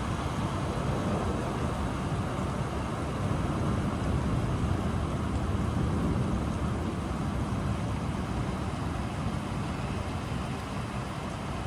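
Steady storm rain with a deep, continuous low rumble that swells slightly about halfway through.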